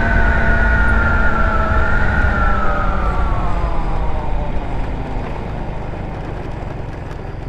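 150cc GY6 scooter slowing down: its high whine falls steadily in pitch and fades out about four seconds in, over a constant low wind rumble on the microphone.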